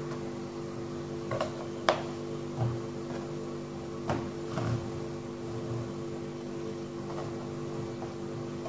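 Raw cookie dough rounds set down one by one on an oiled metal baking tray, giving a few soft taps and light knocks over a steady hum.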